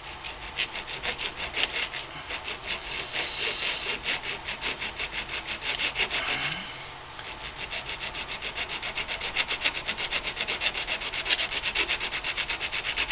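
Hand file scraping back and forth across a thin aluminum tube held in a vise, in quick even strokes, several a second, with a short break about halfway through. The file is cutting a flat spot on the curved tube so an O-ring gasket can seat on it.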